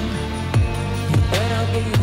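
Background music: an electronic song with a steady beat, its deep kick drums falling in pitch with each hit.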